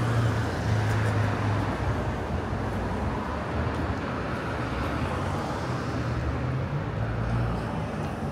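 Traffic on a busy city street: motor vehicles running past, a steady low engine hum that swells and eases over a constant background of street noise.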